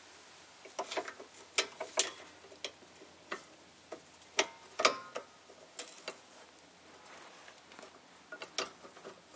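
Scattered light metal clicks, about a dozen at uneven spacing, from a wrench working the lower slider bolt of a 2003 Nissan Altima's rear brake caliper as the bolt is tightened.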